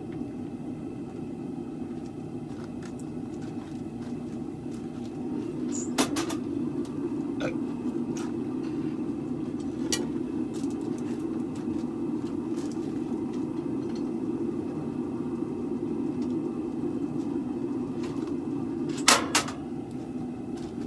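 Steady low roar of a blacksmith's forge running, with a few sharp metallic clinks of steel tools, the loudest just before the end.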